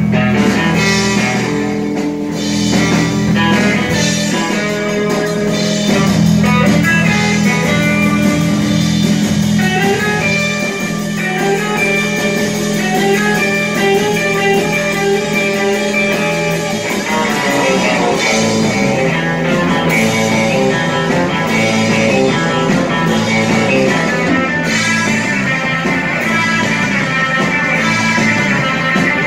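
Live rock band playing, electric guitar over drums. Long held low chords fill roughly the first half, then the playing turns to a choppier, rhythmic riff.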